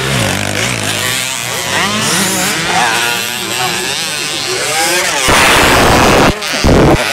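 Several 50cc two-stroke motocross bikes revving up and down together on the dirt track. About five seconds in, a loud rushing noise drowns them out.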